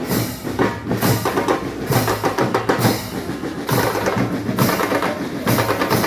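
A band playing music with loud drums keeping a steady beat.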